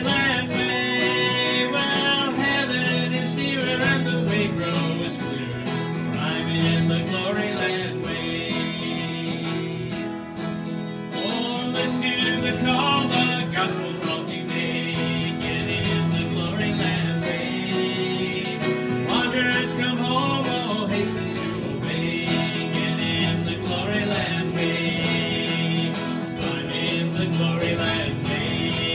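Live acoustic string-band music: acoustic guitars and a mandolin strumming a country/bluegrass-style tune at a steady level.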